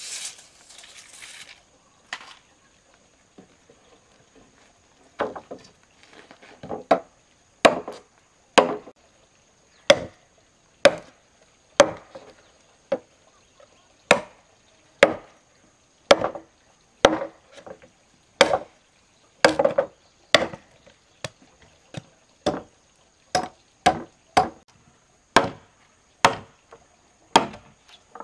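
Wood being chopped by hand: sharp chopping strokes, about one a second, starting about five seconds in.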